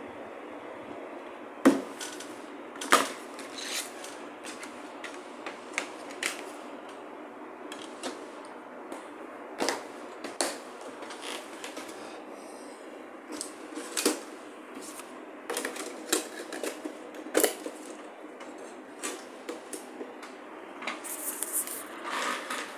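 Irregular clicks and knocks of a plastic DVD case and its disc being handled, over a steady hiss. The two loudest knocks come about two and three seconds in.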